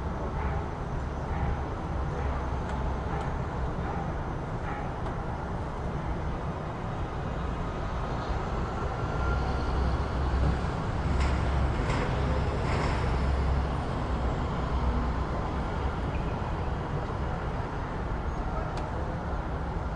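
City street ambience: a steady rumble of passing traffic, swelling a little in the middle, with a few sharp clicks and knocks.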